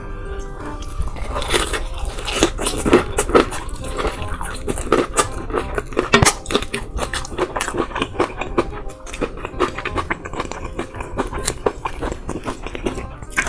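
Close-miked crunching bites and chewing of crispy fried chicken, with many sharp, irregular crunches in quick succession.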